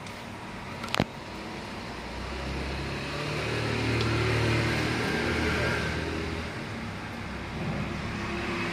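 A motor vehicle's engine, getting louder and then fading through the middle, over steady traffic noise; a sharp click about a second in.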